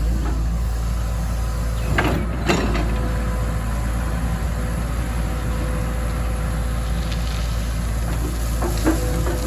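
Excavator's diesel engine running steadily, with two sharp clanks about two seconds in, another near the end, and a steady whine from a few seconds in.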